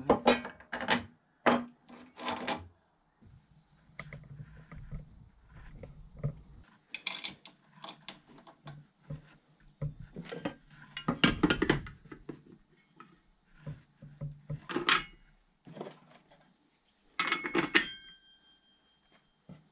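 Metal parts of a brushcutter's blade mount (steel cutting blade, washers, retaining cup) and a spanner clinking and knocking on a wooden workbench as the blade is fitted to the gearhead, in irregular clusters. One knock near the end leaves a short metallic ring.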